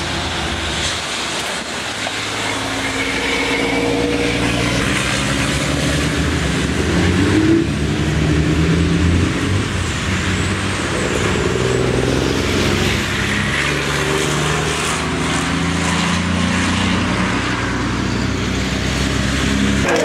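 Several racing trucks' turbo-diesel engines running hard as they pass, their pitch rising and falling through gear changes, over a steady hiss of tyres on the wet track.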